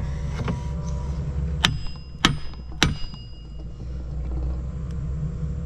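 Three hammer blows on steel, a little over half a second apart, each with a short metallic ring, as a stuck shaft is driven in a Kemper 4500 corn head gearbox. A steady low hum runs underneath.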